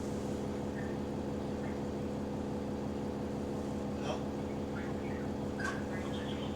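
Bus diesel engine running steadily, heard from inside the bus as an even drone; the bus has a small exhaust leak. Two brief clicks or rattles, about four and five and a half seconds in.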